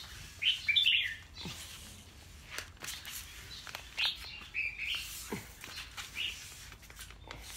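Caged red-whiskered bulbuls chirping and calling in short bursts, several times, the loudest burst about half a second in. They are calling in answer to a wild bulbul that has come near.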